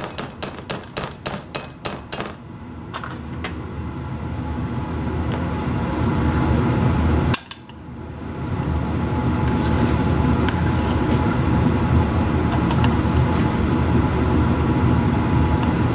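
A metal spoon clinking and scraping against a stainless steel pot while scooping mashed potatoes, about a dozen quick taps in the first two seconds. Then a steady low hum builds and holds, dropping out briefly about halfway.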